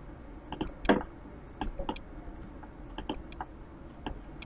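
Computer mouse clicking about a dozen times at irregular intervals, some clicks in quick pairs.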